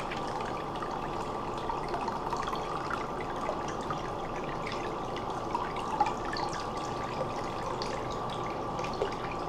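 Steady running water, with small drips and light clicks, as a disassembled vacuum breaker is rinsed clean of deposits.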